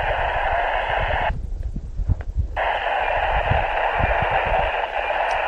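FM receiver hiss from a Baofeng UV-5R handheld's speaker, tuned to the AO-91 satellite downlink on 145.960 MHz with no voice coming through. The hiss cuts out for about a second just before the middle, then returns. Wind rumbles on the microphone underneath.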